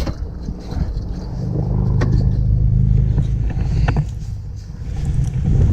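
Sheet-metal condenser cabinet panels being handled and fitted, with a few light metal clicks. A low rumble swells up and fades away under them.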